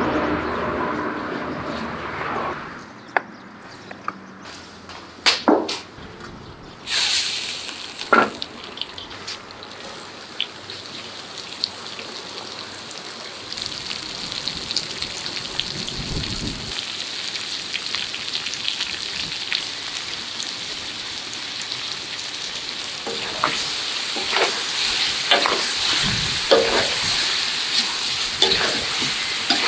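Turkey pieces and sliced onions sizzling hot in a cauldron, a steady hiss that starts after a few knocks about a quarter of the way in and grows louder. Near the end a metal ladle scrapes and clatters as the food is stirred.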